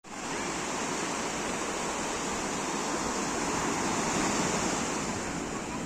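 Sea waves washing in, a steady rush of surf that swells a little about four seconds in.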